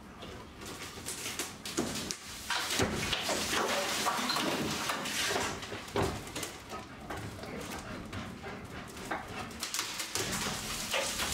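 Old wooden interior panelling and trim being pried and pulled off a boat's walls and ceiling by hand: an irregular run of wood cracking, knocking and scraping.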